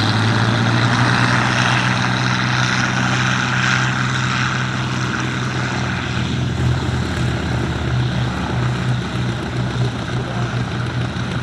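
Hawker Hurricane's Rolls-Royce Merlin V12 engine at take-off power, a steady propeller-driven drone that slowly grows quieter as the aircraft climbs away.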